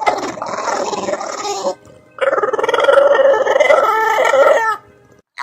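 An animal giving two long, drawn-out calls with a short pause between them; the second call is longer and holds a steady pitch.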